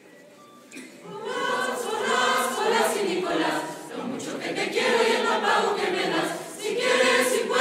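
Choir singing, coming in about a second in after a quiet start.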